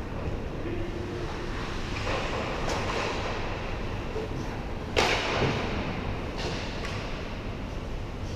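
Ice hockey practice: skate blades scraping on the ice and one sharp crack of a hockey puck being hit about five seconds in, with a few lighter stick or puck clicks, over the steady low hum of a large indoor rink.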